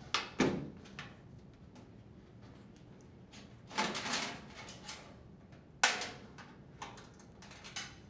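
Handling noise from a dryer's sheet-metal top panel being set on the cabinet and its wires fed through: a couple of knocks near the start, a brief rustling scrape about four seconds in, and a sharper knock about six seconds in followed by a few small clicks.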